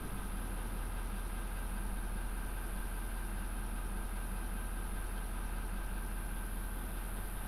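Vehicle engine idling steadily, with a steady high-pitched whine above it.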